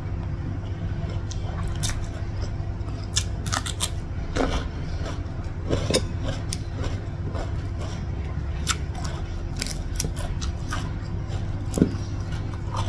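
Close-up eating sounds: chewing, with scattered sharp crunches and clicks as fingers pick at fried fish and rice. A steady low hum runs underneath.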